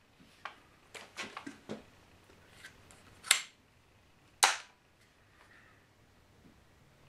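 Metallic clicks from handling an AR-15 rifle: a few light clicks, then two sharp snaps about a second apart, near the middle.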